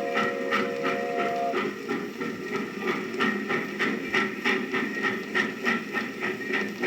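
Recorded train sound effect: a chord train whistle sounds and stops about a second and a half in, then the train runs on with an even, rhythmic chugging beat of about three to four strokes a second.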